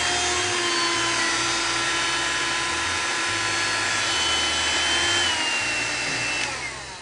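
A 1,875-watt Testarossa hair dryer running with a steady motor whine over the rush of air. It is switched off about six and a half seconds in, and the whine falls away as the fan spins down.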